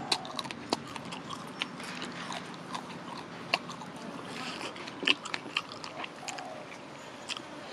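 Close-up chewing of sauce-coated fried chicken, with wet mouth clicks and smacks scattered throughout.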